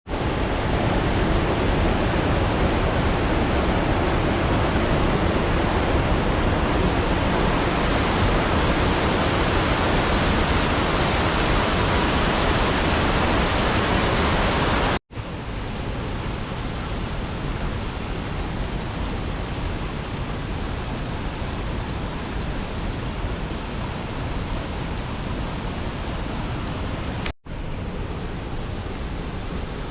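Water rushing out of a spring in a steady roar. It breaks off for an instant about halfway and comes back quieter, then breaks off briefly again near the end.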